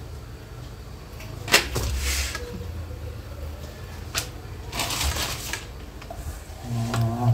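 Handling noise from thin homemade spring roll wrappers being peeled apart and laid on a wooden board: two sharp taps, each followed by a short rustle. A brief low hum near the end.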